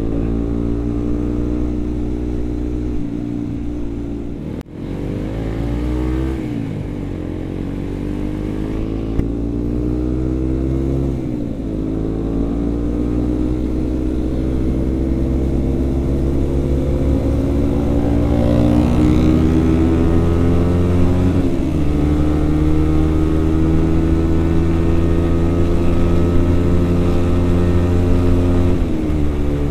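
Motorcycle engine running under way, its note rising and falling several times as the revs change. There is a brief cut in the sound about four and a half seconds in.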